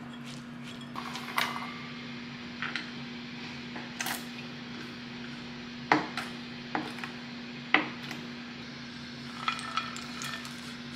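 Mixed nuts clinking into a small stainless-steel bowl, then a spatula stirring oats and nuts in a glass mixing bowl, with scattered clicks and knocks against the bowls. The two sharpest knocks come around the middle. A steady low hum sits underneath.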